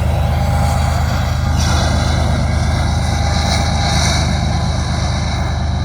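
Union Pacific freight train rolling past at about 29 mph: a loud, steady low rumble of engines and wheels on rail.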